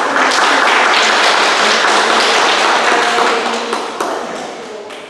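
Audience applauding in a large hall: a dense, even clatter of clapping that starts all at once, holds steady, then dies away over the last second or two.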